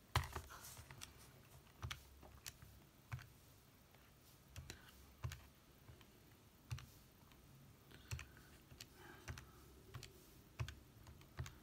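Button presses on a Casio fx-85GTX ClassWiz scientific calculator: a string of soft, irregular clicks, a few a second, as a calculation is keyed in, with a knock near the start as the calculator is put down.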